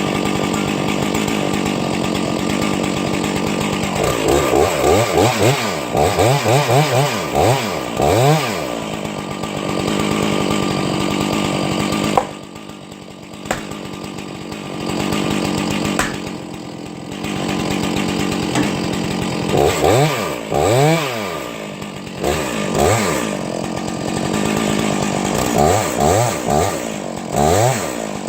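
Two-stroke chainsaw running at high speed, its engine pitch repeatedly rising and falling in quick revs. About twelve seconds in the level drops suddenly for a few seconds, then the saw runs on at speed.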